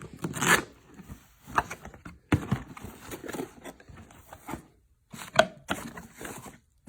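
A cardboard box being opened and its packaging handled: irregular rustling and scraping of cardboard, with a few sharp knocks, the loudest about five and a half seconds in.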